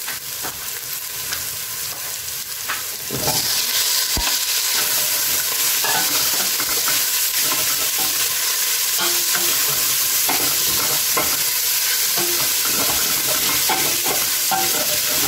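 Pieces of boiled beef frying with browned onions, garlic and ginger in a hot, oiled stainless-steel pot: a sizzle that gets clearly louder about three seconds in as the meat goes in. A wooden spoon scrapes and knocks against the pot as it is stirred, with one sharp click soon after.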